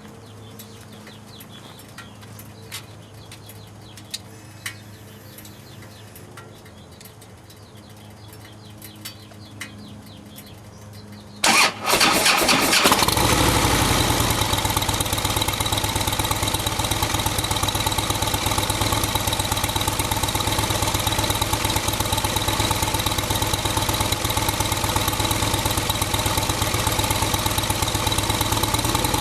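Harley-Davidson Heritage Softail V-twin through a Vance & Hines Pro Pipe 2-into-1 exhaust with the quiet baffle: a few faint clicks, then about eleven seconds in the starter cranks briefly and the engine catches. It settles into a steady, deep idle.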